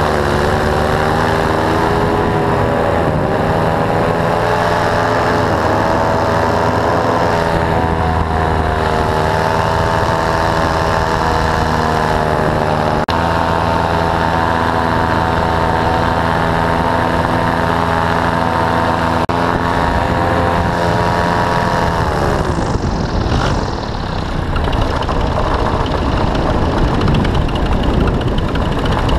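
Paramotor engine running steadily under power, its pitch shifting slightly now and then. About 22 seconds in it is throttled back, the pitch falling away, and rushing wind takes over.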